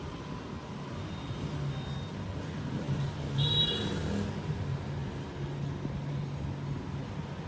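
Street traffic: vehicle engines running as a steady low rumble, with a brief horn toot about three and a half seconds in.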